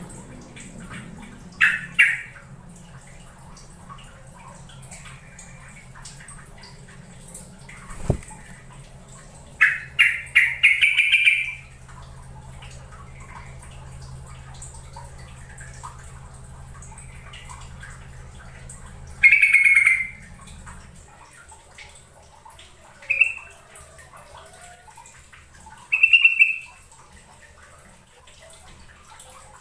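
Yellow-vented bulbul (trucukan) giving short, loud, bubbling calls in separate bursts: one about two seconds in, a longer run near the middle of the first half, then several shorter calls later on. A low steady hum sits underneath and stops about two-thirds of the way through.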